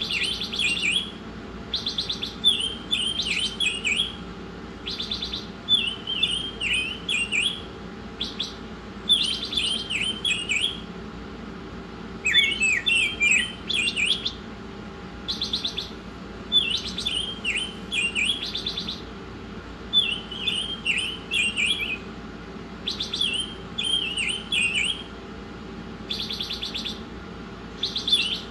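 Songbird singing in full, energetic song: short, rapid twittering phrases repeated every second or two, with quick buzzy trills between them, over a faint steady hum.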